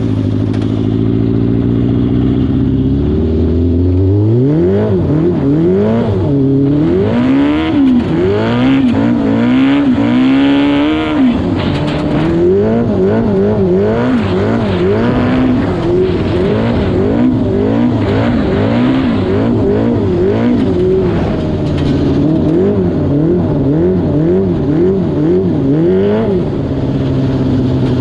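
Homemade lawnmower's 600cc Yamaha R6 inline-four motorcycle engine running. It runs steadily at first, then revs up and down over and over in quick swings of pitch. It settles to a steadier run near the end.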